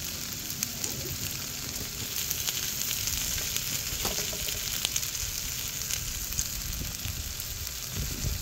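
Beef intestines (daechang and gopchang) sizzling in their fat on a griddle alongside button mushrooms and chives, a steady hiss with small spattering crackles.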